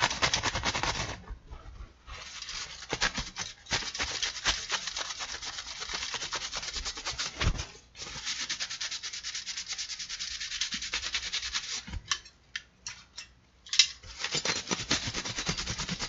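Rapid back-and-forth wiping and scrubbing on an old AMD CPU cooler to clean off its dirt. The strokes stop briefly a couple of times. There are a few sharp knocks in a pause near the end.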